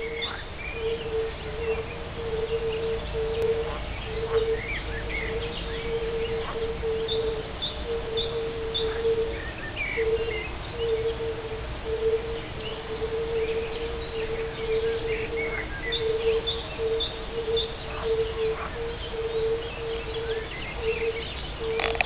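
European fire-bellied toads calling from the pond: a steady run of low, soft 'oop' notes, about one or two a second, with several toads overlapping at times. Birds chirp and twitter over them.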